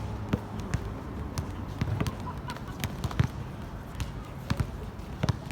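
A basketball bouncing on a hard outdoor court: a dozen or so irregularly spaced thuds as the ball is dribbled and handled during play.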